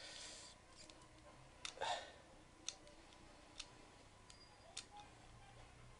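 Faint, scattered clicks of a small diamond pick working the pins inside a CLUB disc lock during single-pin picking, about five clicks spread irregularly over a few seconds.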